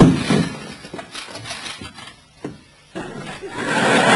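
Laughter: a short burst at the start, then a longer, louder swell of laughing near the end.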